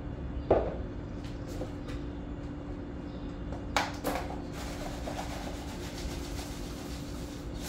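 Steady low room hum, with a cup and containers knocking and clinking on a kitchen counter: one sharp knock about half a second in, and a couple of clicks with a light clatter around four seconds in.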